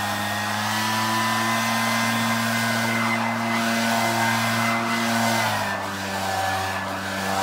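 Backpack leaf blower running at steady speed, a continuous whirring blast, dropping slightly in pitch about five and a half seconds in.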